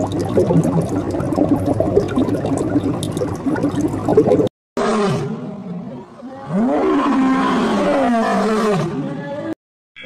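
A dense crackling, bubbling noise for about four and a half seconds. Then, after a brief break, a lion roaring: long calls that rise and fall in pitch over a few seconds.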